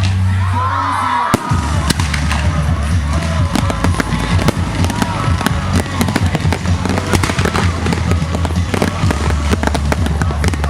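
Fireworks display with rapid, dense crackling and popping from many shells at once, over music with a steady low bass. A few brief whistling glides sound about a second in.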